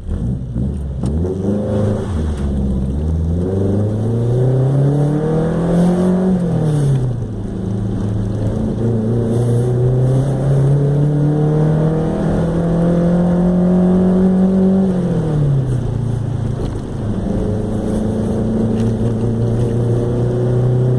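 Chevrolet Chevette 1.6 S four-cylinder engine, naturally aspirated, with a 4x1 header and straight pipe, pulling hard. It climbs in pitch for about five seconds and drops sharply, then climbs slowly again until near the three-quarter mark. There it drops once more and settles into a steady run.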